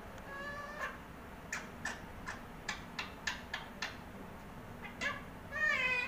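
Indian ringneck parakeet calling: a short pitched call at the start, then a quick run of about eight short sharp chirps, then a longer, rich-toned call near the end.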